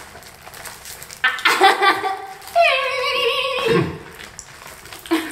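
A person's wordless vocal reaction, starting about a second in: a short voiced outburst, then a drawn-out high-pitched squeal held for about a second that drops in pitch as it ends.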